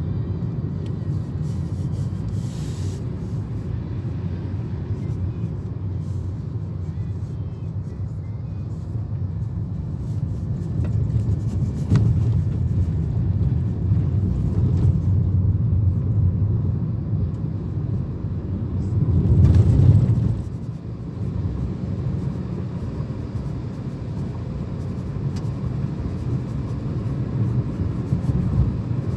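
Steady low rumble of road and engine noise inside a moving car's cabin, with a single sharp tick about twelve seconds in and a louder swell about two-thirds of the way through.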